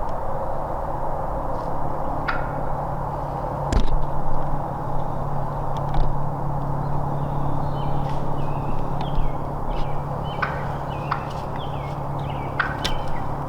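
Scattered short turkey calls, a few sharp notes at a time and more in the second half, over a steady background hiss and low hum.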